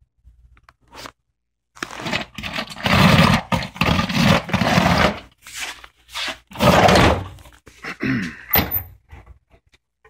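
Aluminum vacuum dirt can being handled: scraping and thunks in several irregular loud bursts, starting about two seconds in and stopping near the end.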